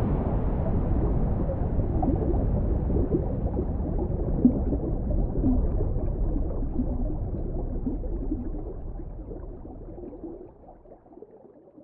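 Rushing-water sound effect: a deep rumble with bubbling, gurgling water sounds, fading out slowly over about ten seconds.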